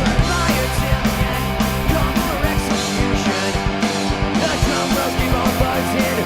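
A rock band playing a fast punk-style song, with guitar and a steady drum beat.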